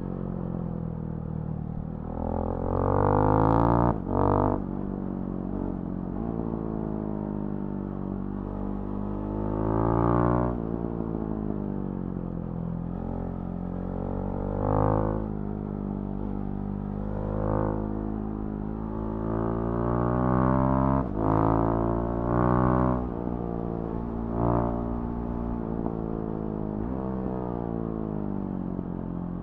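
Husqvarna Svartpilen 701's single-cylinder engine through a Remus NXT exhaust, ridden on the road. The engine pitch climbs and falls over and over as the throttle opens and closes through the gears, with the loudest pulls a few seconds in and again past the twenty-second mark.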